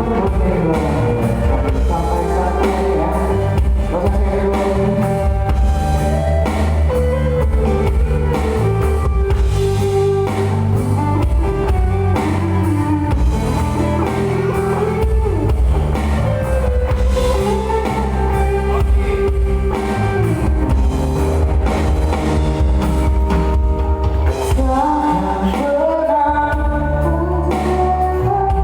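A band playing a song, with singing over guitar and drums.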